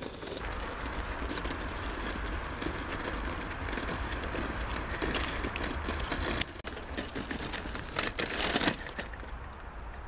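Small plastic wheels of a wheeled suitcase rolling over a gravel and dirt track: a steady rumbling crunch that breaks off about six and a half seconds in, followed by a couple of short scraping bursts.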